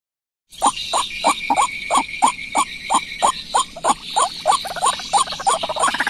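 Loud, rapidly repeated calls of a white-breasted waterhen (ruak-ruak), about three a second, starting suddenly half a second in, over a steady high buzz.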